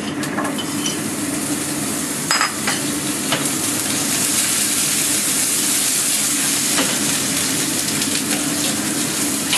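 Chopped vegetables sizzling in hot oil in a frying pan, the hiss growing louder about four seconds in. A few sharp metal clinks of utensils or a pan lid come through over it.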